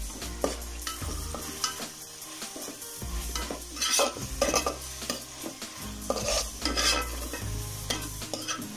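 Sliced onions sizzling in oil in a metal pot while a perforated steel spoon stirs them, with repeated short scrapes of metal on metal. The onions are being sautéed with turmeric just stirred in.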